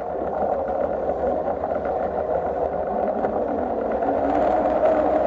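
V6 outboard motor running steadily, slowly growing louder.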